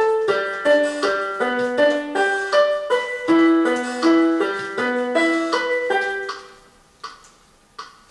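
Electronic keyboard playing a piano-voiced melody, a run of held notes at about two or three a second, fading out about seven seconds in. A brief click comes near the end.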